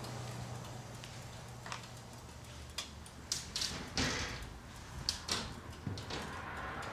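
A steady low hum fades out about three seconds in, followed by a scattering of sharp knocks and clicks from handling gear around a motorcycle on a dyno.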